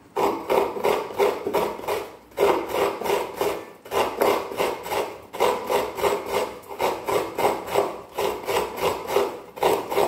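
Coconut flesh being scraped on a serrated coconut grater: quick, even rasping strokes, about three to four a second, in short runs with brief pauses between them.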